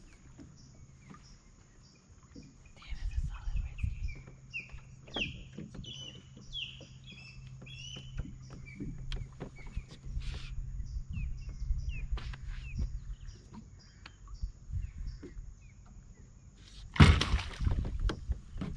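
Birds chirping in short repeated calls, with low knocks and rumble of handling on the boat. Near the end, a loud splash as the redfish thrashes in the landing net at the boat's side.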